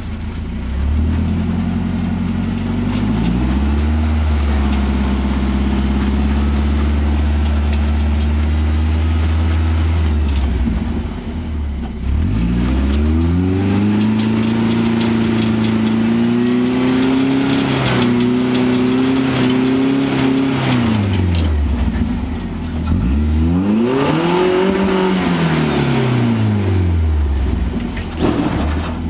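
Truck engine revving up and holding high revs, then dropping back, three times over; the pitch climbs with each push and falls when the throttle is let off, the last push the shortest.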